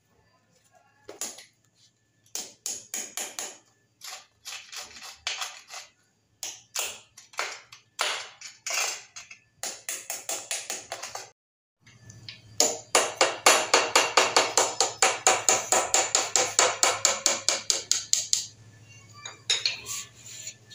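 Hammer striking a steel chisel to chip away plaster along the edge of a lifted ceramic stair tile. Short groups of taps come first, then a fast, even run of about six strikes a second for some six seconds, with a slight metallic ring.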